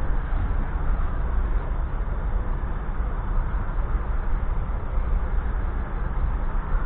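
2013 Volvo FH 500 truck's 12.8-litre six-cylinder diesel engine idling steadily, its sound sitting mostly deep and low.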